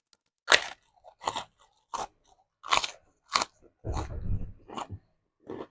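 Close-miked person biting and chewing crunchy food: about seven loud, crisp crunches roughly every 0.7 seconds, with a longer, deeper chewing stretch about four seconds in.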